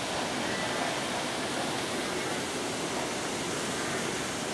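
Fast floodwater rushing in a swollen river over its banks: a steady, even rushing noise.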